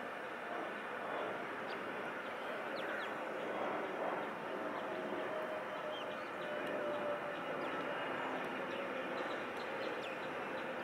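Boeing 737 jet engines heard from a distance while the airliner taxis: a steady rushing hum with a faint whine that slowly drops a little in pitch in the second half.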